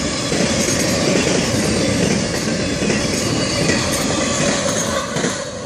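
Florida East Coast Railway intermodal freight cars carrying truck trailers rolling past at close range: a steady rumble and clatter of steel wheels on the rails.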